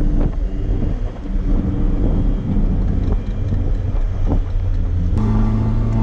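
Car engine running steadily, with wind buffeting the microphone. About five seconds in, the engine note shifts and holds steadier.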